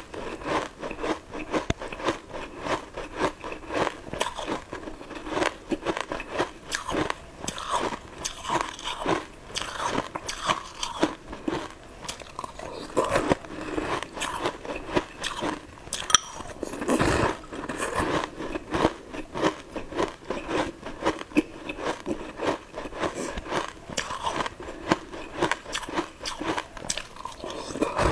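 A person eating close to the microphone, crunching and chewing sugar-crusted coloured balls in many rapid, crisp crunches. One louder, deeper sound comes about two-thirds of the way through.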